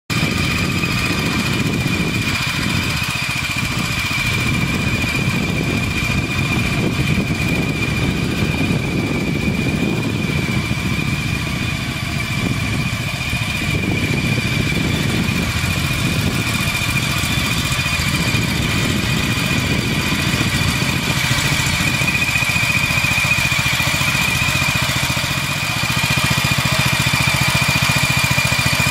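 BCS 660 hydrostatic two-wheel tractor's engine running steadily under light load as the machine pushes a buck rake through cut grass, with a constant high whine over the engine note. It gets a little louder near the end.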